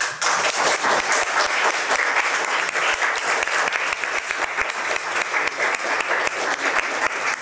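Audience applauding at the end of a live song, many hands clapping steadily.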